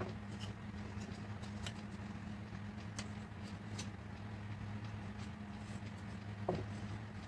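Thin laser-cut wooden bunting flags and jute twine being handled and threaded, giving a few faint light ticks and a single soft knock about six and a half seconds in, over a steady low hum.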